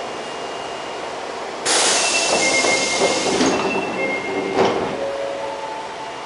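Osaka Metro 22 series subway car running, heard from inside the car. About two seconds in the rail noise jumps sharply louder for some three seconds, with wheel squeal and a sharp knock near the end of the loud stretch, then settles back to a steady run.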